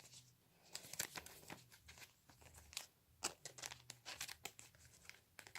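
Foil wrapper of a Pokémon trading card booster pack crinkling and tearing as it is opened by hand, a quiet run of sharp crackles starting about a second in.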